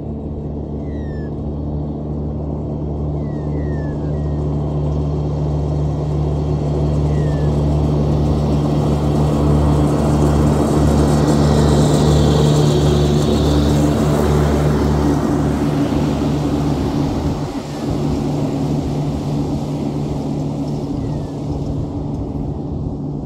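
Ride-on mower engine running under cutting load, growing steadily louder as it drives past about twelve seconds in, then fading as it moves away.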